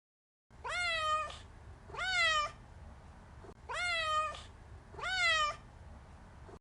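Domestic cat meowing four times, about one meow every second and a half, each one rising in pitch and then holding or easing down.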